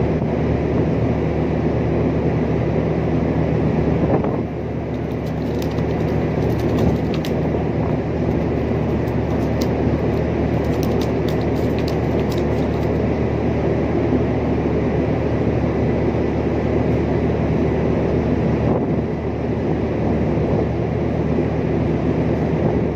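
Ship's machinery droning steadily on deck: a loud, even hum with several steady low tones. A run of faint ticks sounds from about five to thirteen seconds in.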